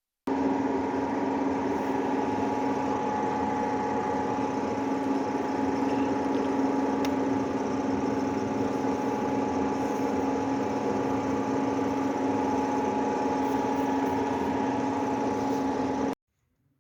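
Electric motor of a homemade sharpening machine running steadily with an even hum. It starts suddenly at the outset and cuts off abruptly about sixteen seconds in.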